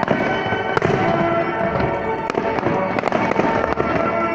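Fireworks display: a dense run of bangs and crackling bursts, with music playing underneath.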